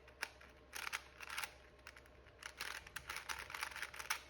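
Plastic Rubik's-brand cube being turned by hand: bursts of quick clacking layer turns, about a second in and again through the second half, as a picture centre that sits the wrong way is turned back into place.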